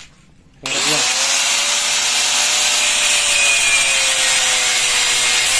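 Handheld angle grinder with a cut-off disc starting up suddenly just under a second in and cutting through a long metal bolt: a loud grinding hiss with a steady whine from the spinning disc.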